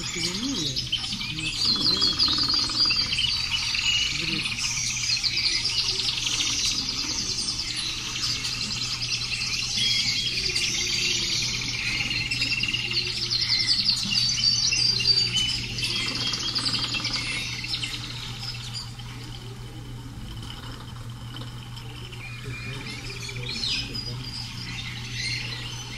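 Birdsong: many birds chirping and twittering in a dense chorus that thins out about two-thirds of the way through, over a steady low hum.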